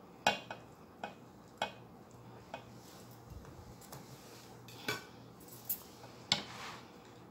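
Steel fork and knife clinking and scraping against a ceramic plate: about eight sharp, irregularly spaced clinks with a short ring, the last few as the plate itself is handled.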